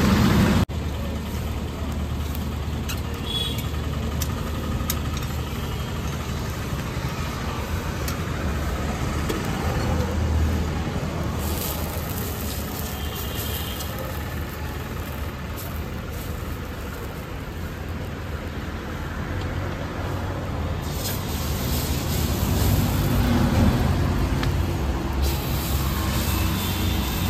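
Steady low rumble of street traffic, with stretches of sizzling hiss, the loudest near the end, as rice batter is ladled onto a hot iron griddle.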